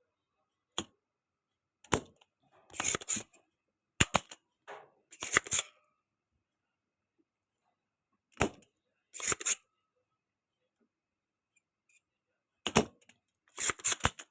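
Sharp clicks and snaps of hand tools working on a TV circuit board while a swollen component is being removed, about ten in all, some single and some in quick doubles or triples, with pauses between.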